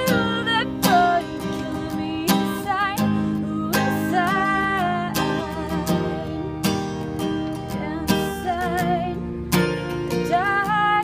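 A woman singing her own song to a strummed acoustic guitar, holding long notes with vibrato between the chord strokes.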